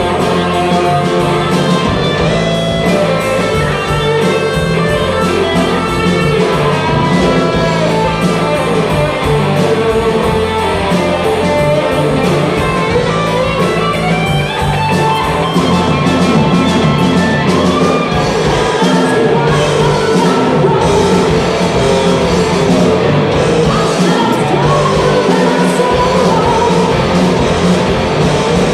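Live rock band playing: electric guitar, bass, keyboards and drum kit, with a woman singing lead, mostly in the second half.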